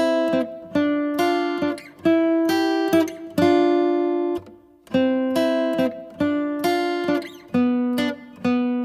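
Acoustic guitar music: a run of strummed chords, each struck and left to ring before the next.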